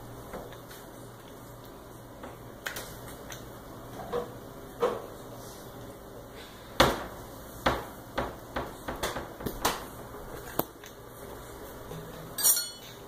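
Scattered knocks and clatters from things being handled in a kitchen, such as a cabinet door and dishes. The loudest is a sharp knock about seven seconds in, followed by a run of quick light clicks and a brief clatter near the end.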